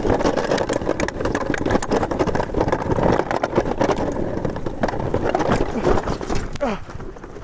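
Snowracer sled sliding fast through snow: a steady rushing hiss of the skis and the wind, broken by many small knocks as it rides over bumps, easing off near the end.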